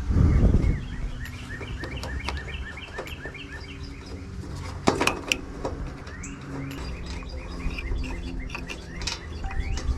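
Small birds chirping in a rapid series of short calls, with scattered sharp metal clicks and clinks. There is a low thump right at the start.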